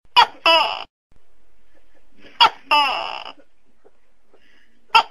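Tokay gecko calling its 'to-kay' call: two two-note calls about two seconds apart, each a short sharp note followed by a longer note falling in pitch. A third call starts right at the end.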